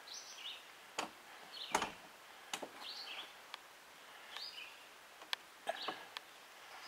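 Wild birds calling over a lake, short chirping calls repeated about once a second, with a few sharp clicks and knocks, the loudest about two seconds in. No outboard motor running.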